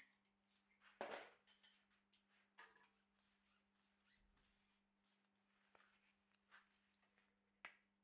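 Near silence: faint room tone with a steady low hum, broken by a few soft clicks and short rustles, the loudest a rustle about a second in and a sharp click near the end.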